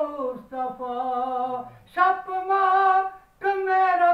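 A man chanting a naat unaccompanied in tarannum-style melodic recitation, holding long, slightly wavering notes in phrases broken by brief pauses for breath.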